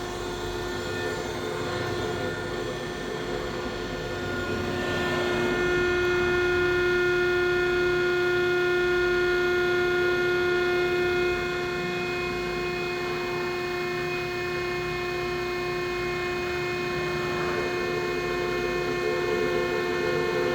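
Electric motor of a kkakdugi (radish cube) dicing machine running with a steady hum made of several held tones. It grows louder about five seconds in and eases back a little about eleven seconds in.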